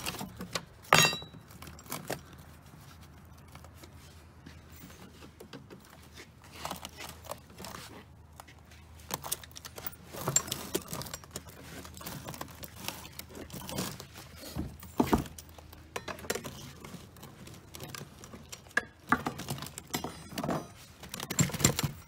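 Irregular metal clinks, knocks and rattles as the steel housing of an old coin payphone is worked at and pried open by hand, with a sharp clank about a second in and another near the middle.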